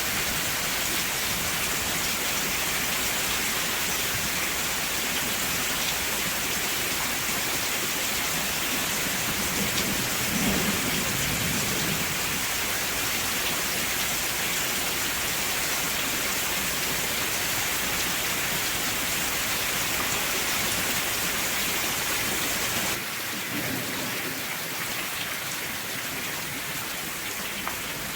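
Steady heavy rain falling, with a low rumble of thunder swelling about ten seconds in. About three-quarters of the way through the sound changes abruptly and the low rumble drops away.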